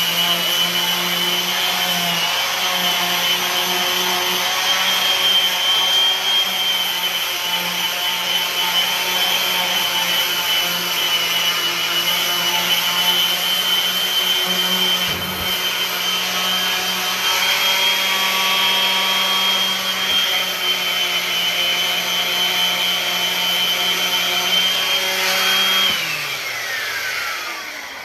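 An electric power tool's motor running steadily with a high whine and a low hum, then switched off about two seconds before the end and winding down, its pitch falling away.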